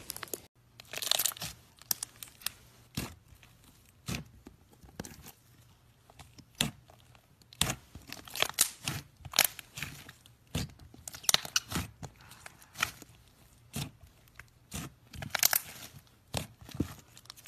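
Thick foamy slime being kneaded, squeezed and stretched by hand, giving off a string of irregular crackles, pops and soft tearing sounds.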